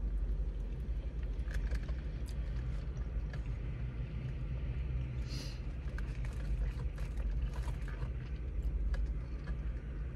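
Steady low rumble of an idling car engine heard inside the cabin, with faint clicks and smacks of someone chewing a chicken wing.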